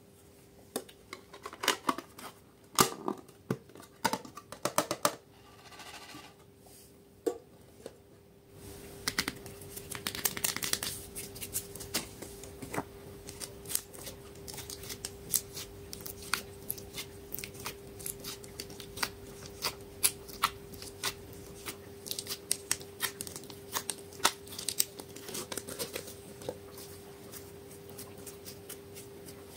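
Hands working slime and small plastic slime containers: a long run of sharp clicks, crackles and sticky pops, thicker and busier from about a third of the way in, over a faint steady hum.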